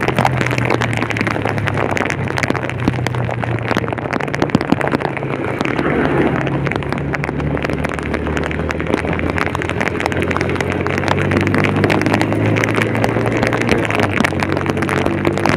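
A vehicle driving through heavy rain: a steady engine hum under dense rain noise, with the engine note climbing slightly about three-quarters of the way through.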